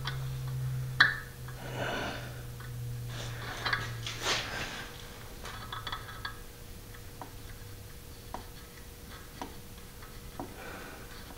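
Scattered small metallic clicks and soft handling noises as a heli-coil insertion tool is turned by hand, threading an 8x1.25 heli-coil into a stud hole in a VW engine case. A low steady hum runs underneath and fades after about eight seconds.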